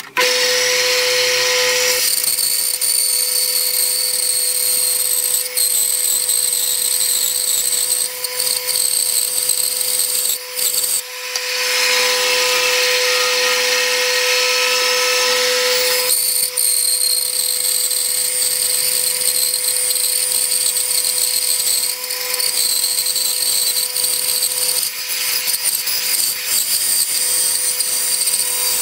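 Clarke benchtop bandsaw running with a steady motor hum, its blade cutting through a thick wooden block with a high-pitched hiss. The cutting sound dips briefly about ten seconds in, then carries on.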